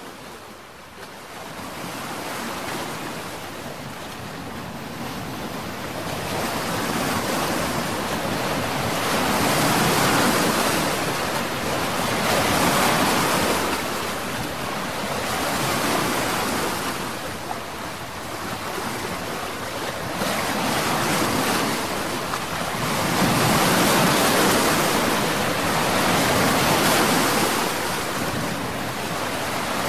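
Sea waves washing and breaking, a steady rush that swells and fades about every three seconds, fading in at the start.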